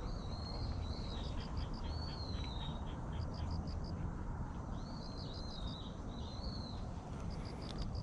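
Birds calling: several short, arching high calls, with runs of quick high chirps coming every few seconds, over a steady low rumble.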